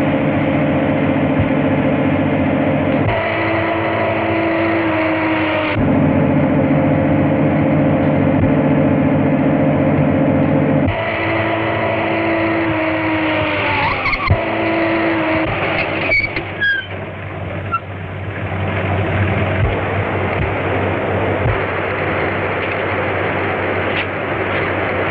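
Car engine running at speed in a chase, a steady drone that jumps in pitch and level at each film cut. About fourteen seconds in the note drops, then a short high squeal and a knock, followed by a steady rushing noise.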